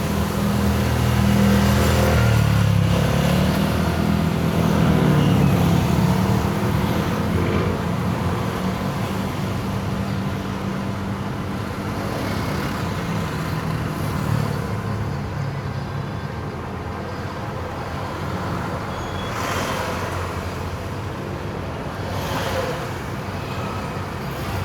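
Road traffic heard from a moving electric vehicle. A nearby motor vehicle's engine hums loudly, shifting in pitch, for the first several seconds, then gives way to steady road noise with a few vehicles swishing past near the end.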